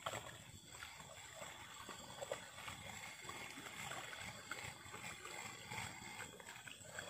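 Steady high-pitched insect drone, with small knocks and rustles scattered through it.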